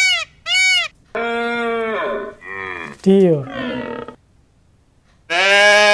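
Animal calls: two short, high, arching peacock calls at the start, then longer drawn-out calls. After the spoken word 'deer', one long steady deer call near the end.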